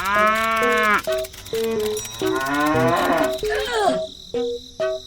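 A cow's long moo in the first second, over background music of short melodic notes, with warbling pitch glides about three seconds in.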